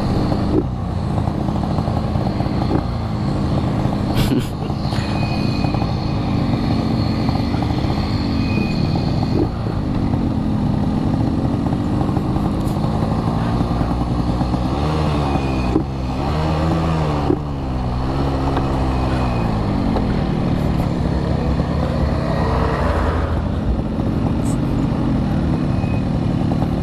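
Yamaha RX-King two-stroke single-cylinder motorcycle engine under way, its pitch climbing and dropping again and again as the throttle is opened and closed and the gears are shifted, with a quick run of revs and drops about halfway through.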